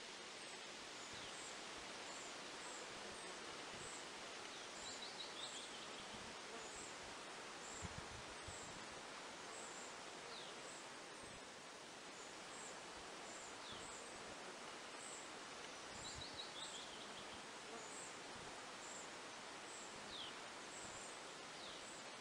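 Faint outdoor nature ambience: small birds calling, with thin high chirps about once a second and, twice, a short falling run of notes, over a steady rustling hiss. There are a couple of soft low bumps, the first about eight seconds in.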